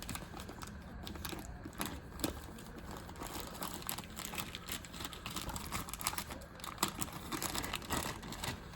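Irregular light clicks, ticks and rustles of a cheap folding multi-tool and its key ring being handled as a lanyard is worked at the crowded lanyard hole.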